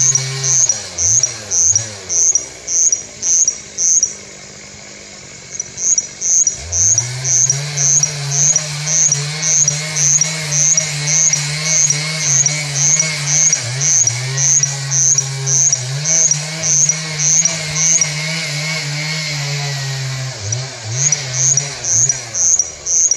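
Russet bush warbler singing a long rhythmic series of short high notes, about two or three a second, pausing for a few seconds near the start. A chainsaw runs underneath, dying down about a second in, revving up again about six seconds in, and dropping away near the end.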